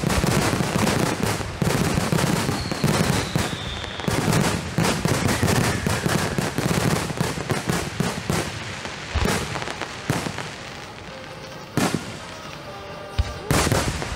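Aerial fireworks going off in a rapid barrage of booms and dense crackling. After about ten seconds the barrage thins to a few single loud bangs.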